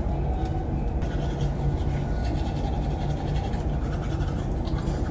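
Teeth being brushed with a manual toothbrush, a rapid steady scrubbing, over the low steady hum of the ferry's engines.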